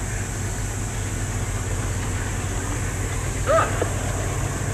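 GE C30 diesel-electric locomotives approaching, their diesel engines running with a steady low drone.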